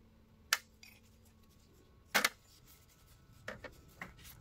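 Steel adjustable-wrench parts set down in a metal baking tray of oil, knocking against the tray: a sharp clack about half a second in, a louder double clack about two seconds in, then a few lighter taps near the end.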